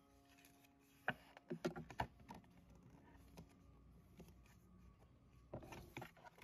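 Quiet handling of a CD's paper booklet and case: a few soft paper rustles and light taps, about a second in, around two seconds, and again near the end.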